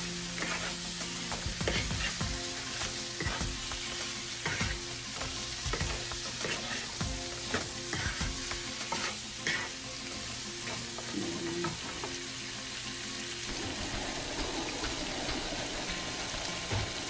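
Pork with onions, peppers and tomatoes sizzling in oil in a frying pan, a wooden spatula stirring and scraping through it in quick strokes; the stirring stops about ten seconds in and the steady sizzle carries on.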